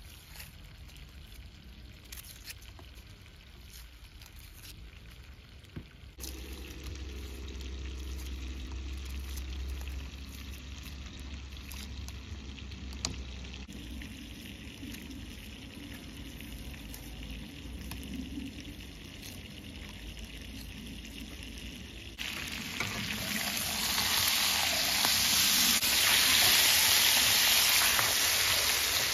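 Light clicks of kitchen handling, then a low rumble, and from about three-quarters of the way in, meat sizzling loudly in a frying pan as it is stirred and turned with a spatula.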